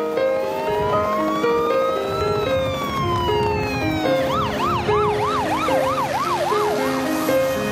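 Ambulance siren: one slow wail that rises for about two seconds and falls again, then switches to a fast yelp of about three cycles a second that fades out near the end, over background music.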